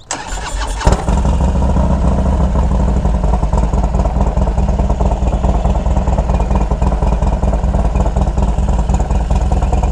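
Harley-Davidson Dyna's S&S T124 (124 cubic inch) V-twin being started: the starter cranks for under a second, the engine catches with a sharp bang, then settles into a steady, loud idle.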